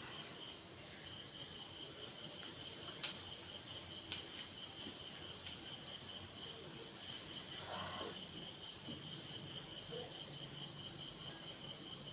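Quiet room with crickets chirping steadily in the background, a pulsing high-pitched chirr. There are two short clicks about three and four seconds in.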